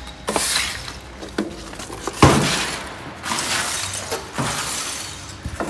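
Push broom sweeping broken concrete block rubble and dust across a concrete floor in repeated scraping strokes, with pieces of block clattering. A sharp knock comes about two seconds in.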